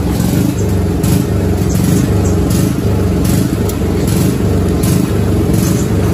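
Yamaha WR 155's single-cylinder four-stroke engine running at a steady idle. The idle stays too high even after the throttle position sensor was set to zero.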